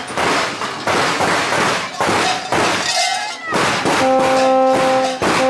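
Large bells worn by Perchten clanging and rattling in quick irregular strikes. About four seconds in, a horn starts one long held note, with a short break near the end.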